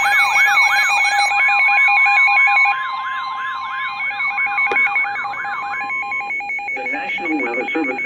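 Electronic alert sounds: a fast, repeating rising-and-falling siren sweep layered with a steady tone and on-off beeping tones, all loud. The sound drops in level about a third of the way in, and the sweeping stops shortly before the end.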